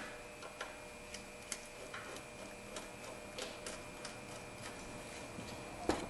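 Faint, irregular light clicks and taps of hand-tool work on the engine's air intake snorkel tube.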